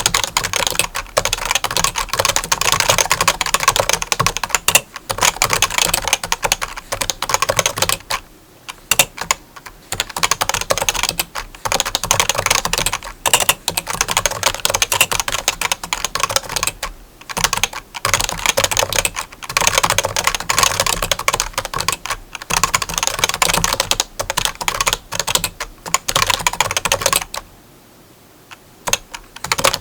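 Fast, continuous clicking of keys being typed, with a few brief pauses and a longer one near the end; a steady low hum runs underneath.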